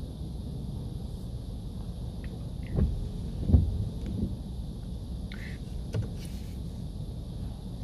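Low steady rumble heard from inside a car's cabin in an automatic car wash bay, with two dull thumps about three and three and a half seconds in.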